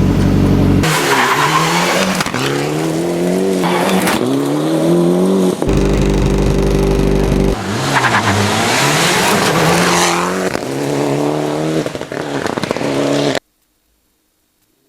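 Rally car engine at full throttle, its pitch climbing and dropping again and again as it revs up and shifts through the gears, with steady-pitch stretches near the start and about six seconds in. It cuts off suddenly near the end.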